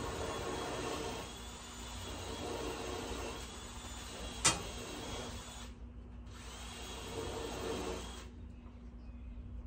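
A power tool running steadily, stopping for about half a second around six seconds in and cutting off near the end. A single sharp click about four and a half seconds in is the loudest moment.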